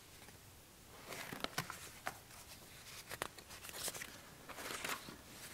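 Faint rustling of papers with light, irregular taps and clicks as they are handled on a pulpit near its microphone, starting about a second in.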